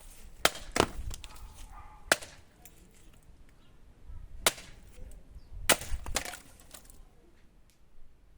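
Restored bearded axe chopping into wood: about half a dozen sharp, uneven blows, two in quick succession near the start and two close together after about five and a half seconds.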